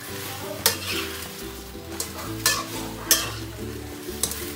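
Spatula stirring whole shrimp around a stainless steel wok over a steady sizzle, knocking against the pan in three sharp clanks.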